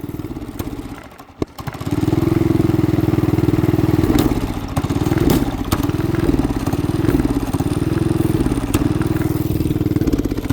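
212cc single-cylinder four-stroke engine fades almost to nothing about a second in, with a click, then picks up again and runs on with its speed sagging and recovering over and over: running rough and struggling.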